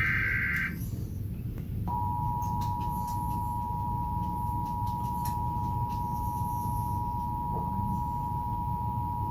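Emergency Alert System test played through a TV: the last SAME data-header burst, a raspy warbling screech, ends in the first second. About two seconds in, the EAS two-tone attention signal starts: two steady tones near 1 kHz (853 and 960 Hz) sounding together.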